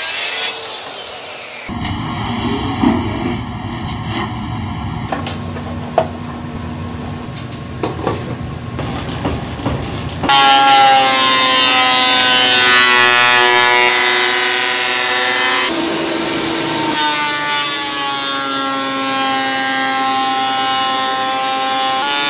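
A plunge track saw finishes a cut through plywood at the start, followed by several seconds of steady power-tool noise. About ten seconds in, a Makita benchtop thickness planer takes over: a loud, many-toned whine whose pitch sags and recovers as boards feed through the cutterhead, with a short break between passes about halfway through its run.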